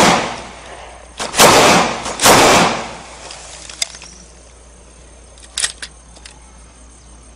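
Taurus 24/7 pistol firing as it is shaken in the hand: a shot right at the start, then two more about a second and a half and two and a quarter seconds in, followed by a few faint clicks. The gun discharging from being shaken alone, the fault the video sets out to show.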